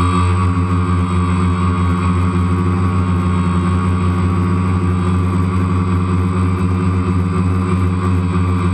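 DJI Phantom quadcopter's motors and propellers buzzing at a steady pitch in flight, picked up close by the GoPro mounted on the drone.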